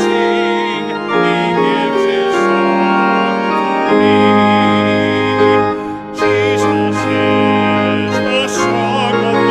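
Church organ playing a hymn with a congregation singing along, sustained chords changing about once a second, with a short break between phrases about six seconds in.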